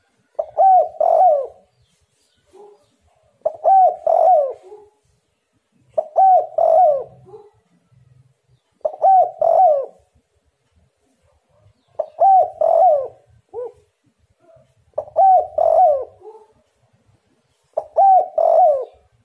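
Spotted dove cooing: a phrase of two or three coos, repeated about every three seconds.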